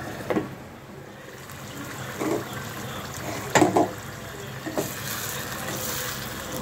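A pot of curry bubbling as it simmers, with several knocks and clinks of the lid and a metal spoon against the pot, the loudest about three and a half seconds in. The bubbling grows louder near the end as the spoon stirs.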